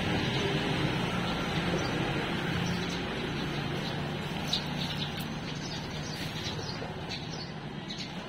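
Steady background hum and noise, with a few short high bird chirps about halfway through.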